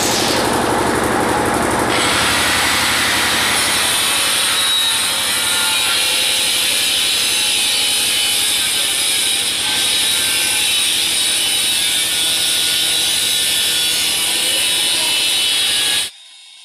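Handheld electric tile cutter, angle-grinder type, running at speed and cutting through ceramic tiles: a loud, steady grinding whine that stops abruptly near the end.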